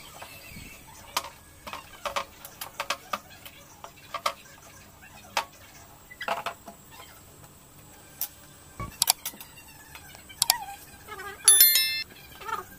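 Homemade wooden folding drawing table being unfolded by hand: scattered light knocks and clicks of wood as the legs are swung out and the tabletop is raised, with a short high ringing near the end.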